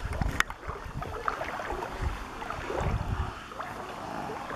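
Wind buffeting the microphone in uneven gusts, with water moving in the background and a few faint clicks.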